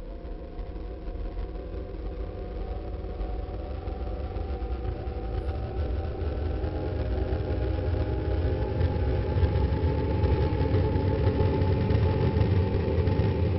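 A low, engine-like mechanical rumble with steady humming tones, swelling gradually louder, while fainter whining tones slowly rise in pitch over its second half.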